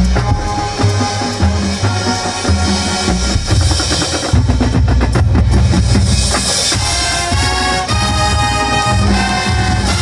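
High school marching band playing: brass over a drumline with steady bass-drum hits, a busy run of percussion strokes around the middle, and the brass holding long chords in the second half.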